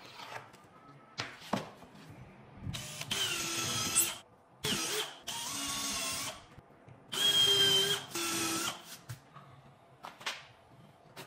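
Cordless drill-driver driving screws into wood panels in three short runs of one to two seconds each, its motor whining, with knocks of the work being handled between runs.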